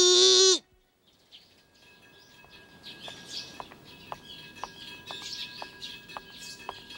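A girl's drawn-out high-pitched taunting 'beh' cuts off about half a second in. After a moment of silence, birds chirping fade in over a quiet street background, with light, regular footsteps of about two a second.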